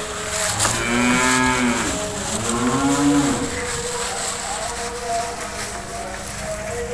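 Cattle mooing twice: a call about a second in, then a second moo that rises and falls in pitch.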